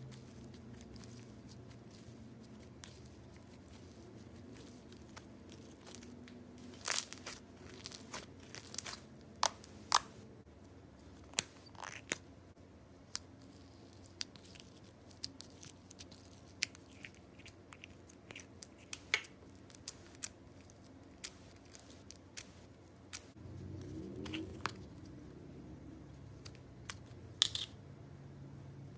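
Slime being pressed and worked by hand, giving scattered sharp crackles and pops that start about a quarter of the way in, with a short low rising squelch near the end.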